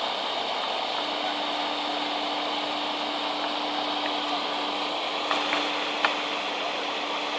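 Caterpillar tracked excavator running and lifting, a steady noisy drone with a faint steady whine that joins about a second in. A few short clicks come about five and six seconds in.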